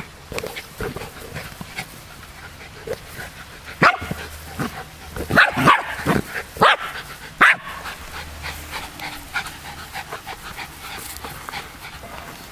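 West Highland White Terriers barking in play while tussling over a ball: a burst of several short, sharp barks around the middle, with softer sounds of play on either side.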